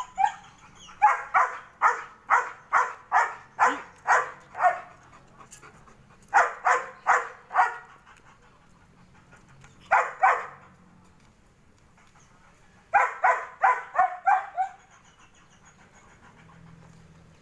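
German Shepherd barking in bouts of rapid, evenly spaced barks, about two or three a second: a run of about ten barks starting about a second in, then shorter runs of about five, two and six, with pauses between.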